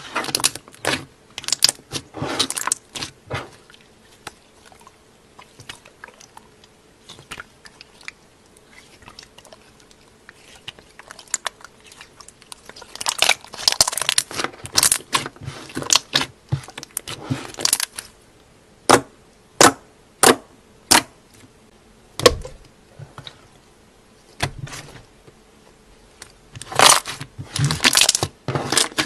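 Hands squeezing and kneading clear jelly slime, giving clusters of wet clicks and pops with quiet gaps between them. After the middle comes a short run of single pops under a second apart, and near the end a dense cluster.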